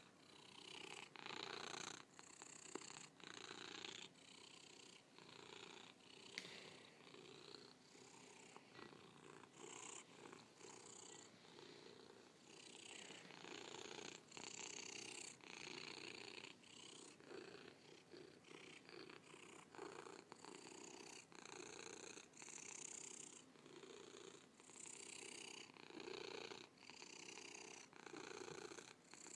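Black-and-white domestic cat purring faintly and steadily, the purr swelling and fading about once a second.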